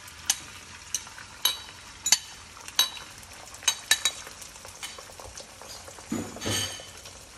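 Beaten eggs sizzling in a hot oiled wok, with sharp clinks of a fork against the bowl about eight times in the first four seconds as the last of the egg is scraped out. A short low sound comes a little past six seconds.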